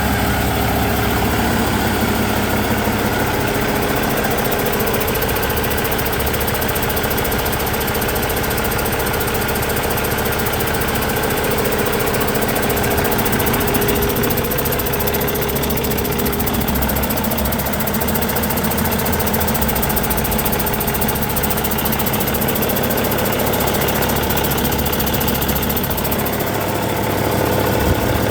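2013 Cummins ISX15 inline-six diesel engine running steadily at an even speed during a run test.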